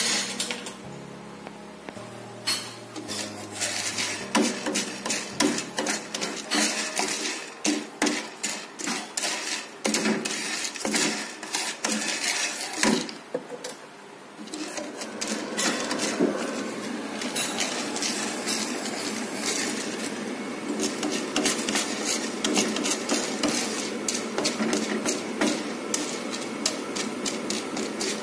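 Wooden spoon stirring coffee beans in a non-stick frying pan, the beans rattling and scraping against the pan in dense irregular clicks. The stirring pauses briefly about halfway through, then goes on more steadily.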